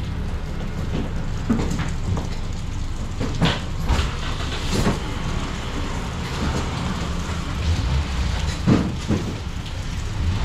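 Street traffic noise with a steady low rumble, broken by a few sharp knocks and clatters.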